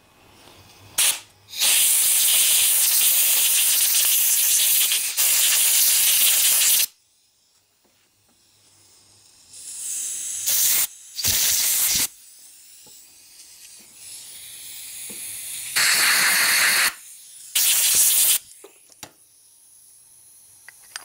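Pressurized nozzle hissing in blasts while carburetor parts are cleaned: a short blast, then one long blast of about five seconds, then four shorter ones of about a second each.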